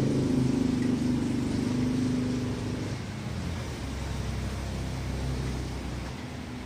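Low, steady mechanical hum that weakens about three seconds in, leaving a deeper, quieter hum.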